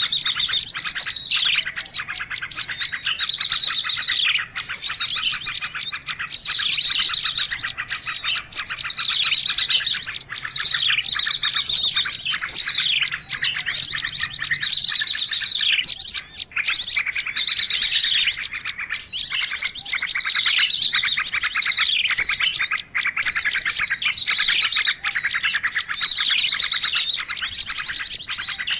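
Bird-lure recording of small songbirds calling: a continuous fast, buzzy trill with a high downward-sweeping call repeating about every two seconds, several birds overlapping.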